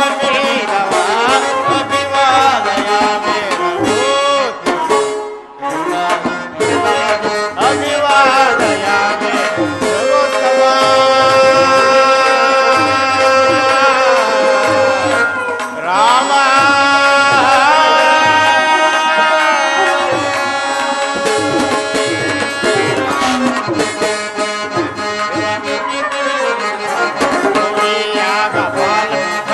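Instrumental music: a melody on an electronic keyboard over a steady hand-drum rhythm, briefly dropping out about five seconds in.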